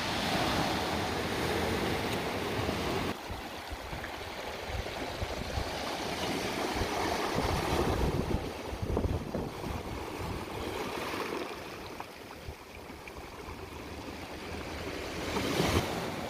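Ocean surf breaking and washing over a sand-and-pebble beach, the rush of water swelling and easing as each wave comes in and draws back.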